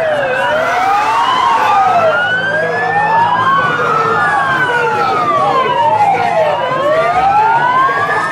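Two police car sirens wailing, each sweeping slowly up and down in pitch, out of step with each other so their rises and falls cross.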